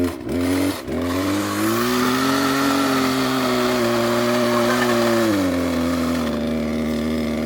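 Two-stroke chainsaw revving up and running at high speed, then its pitch drops back to a lower steady run about five seconds in.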